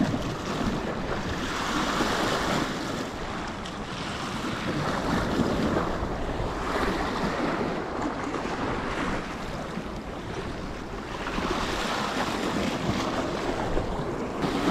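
Sea waves washing and breaking, swelling and easing every few seconds, with wind buffeting the microphone.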